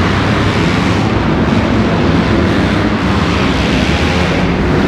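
A pack of motocross dirt bikes racing, their engines running together in a loud, steady din inside a covered arena.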